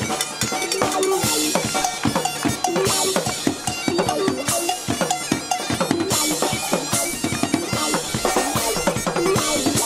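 Live band music: Highland bagpipes playing a tune over a steady rock beat on a drum kit.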